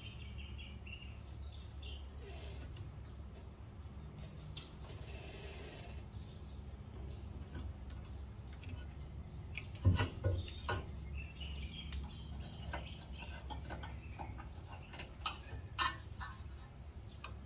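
Metal clinks and a loud knock about ten seconds in, then a few sharp clicks near the end, as a front brake caliper is worked loose and lifted off its bracket. Birds chirp over a steady low hum.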